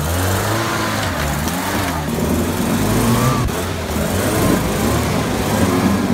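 UAZ-469 off-roader's engine running under load, its note rising and falling with the throttle as it crawls through forest undergrowth.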